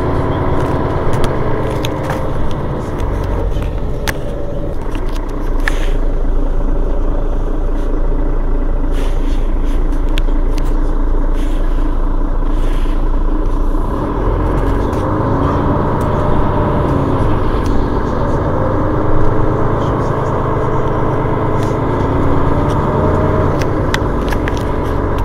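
Mercedes-Benz Citaro Facelift city bus engine idling while stopped, a steady low running whose tone deepens about halfway through, with a few light clicks.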